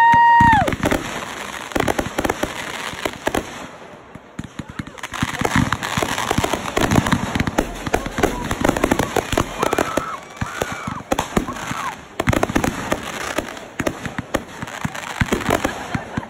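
Backyard consumer fireworks going off in a rapid run of bangs and crackling star bursts, easing briefly about four seconds in and then building again. The loudest moment is a short, high tone with overtones right at the start.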